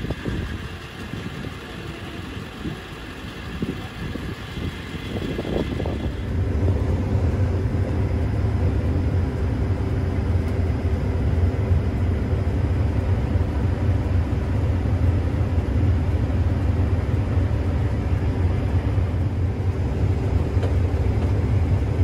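Quieter, uneven vehicle noise for the first few seconds. Then, from about six seconds in, the steady low drone of a New Holland combine's engine and threshing machinery, heard from inside the cab while it cuts wheat with a MacDon draper header.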